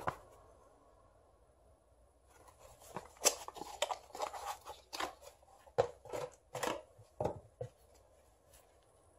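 Small cardboard parts box handled and opened by gloved hands: a run of crisp, irregular rustles and clicks from about two seconds in, after a short rustle right at the start.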